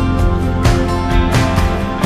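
Background music with sustained instrument tones and a steady beat.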